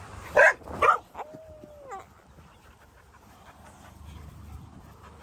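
Dog yipping twice in play, then a drawn-out whine and a short rising whimper.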